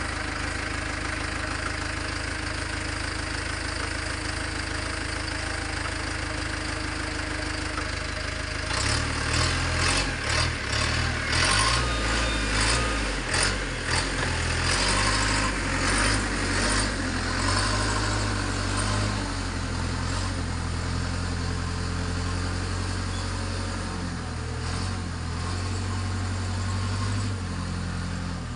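Backhoe's diesel engine idling, then, about nine seconds in, working harder and louder with a run of sharp metallic clanks and knocks for several seconds, before settling back to a steady run.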